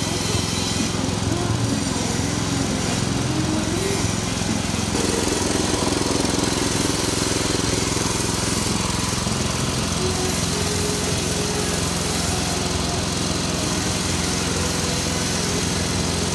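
Small single-cylinder petrol engine running steadily at constant speed, driving a stainless screw extruder through a V-belt as it pushes out dough logs.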